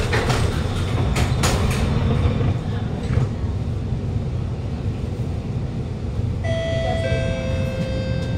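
Alstom Movia R151 metro train interior: a few clunks as the doors shut in the first two seconds, then a steady low rumble as the train moves off through the tunnel. About six seconds in, a set of steady tones comes in and shifts pitch in steps.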